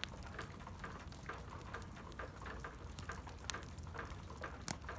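Wood campfire crackling, with irregular small sharp pops and ticks, a couple of louder snaps in the second half.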